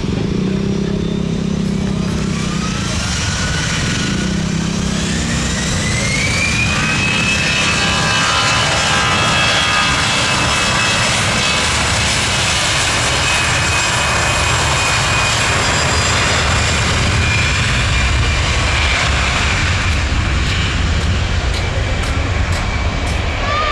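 Airbus A320-200's jet engines spooling up to take-off power: a whine climbs steadily over several seconds, then holds level over a loud, even rush of jet noise.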